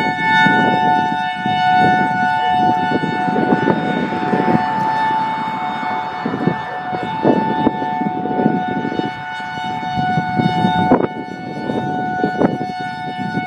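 Federal Signal EOWS-612 electronic siren sounding a steady dual-tone chord from its original Siratone controller while its horn array rotates. The tone is weak for such a siren because several of its drivers are blown.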